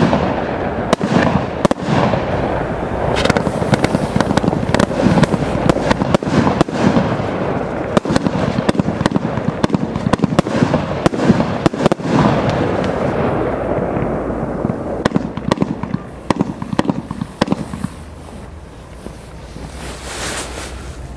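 Absolute Fireworks Big Bad Boss compound barrage cake firing: a rapid string of sharp launch bangs and bursting shells over dense crackling. About three-quarters of the way through it thins to scattered pops, with a hiss near the end.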